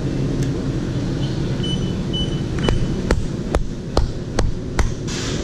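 M&R Gauntlet III automatic screen printing press humming steadily. It gives a few short high beeps, then a run of six sharp clicks about 0.4 s apart, and a short hiss near the end.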